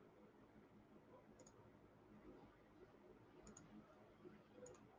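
Near silence, with three faint, spread-out clicks of a computer mouse.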